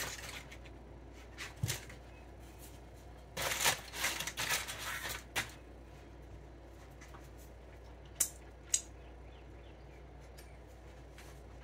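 Aluminum foil crinkling and rustling for about two seconds as it is handled, followed a few seconds later by two sharp clicks about half a second apart.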